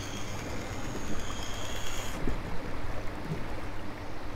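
Flowing river water, with a high, steady buzz that stops about two seconds in.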